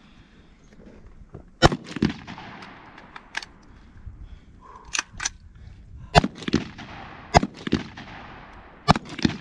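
Rifle shots on an outdoor range: about ten single shots at uneven spacing, some close and loud, others fainter from neighbouring lanes, each with a short echo.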